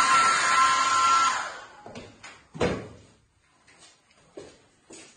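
Handheld hair dryer blowing steadily with a whine, shutting off about a second and a half in. Then a few scattered knocks, the loudest a single thump a little past halfway.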